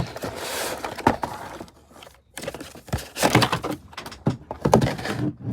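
Cardboard and plastic toy packaging being handled and opened: a sharp click at the start, then irregular scraping and rustling handling noises in bursts.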